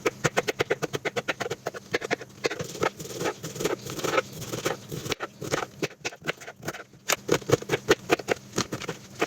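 Kitchen knife chopping vegetables on a cutting board in quick, steady strokes, several a second.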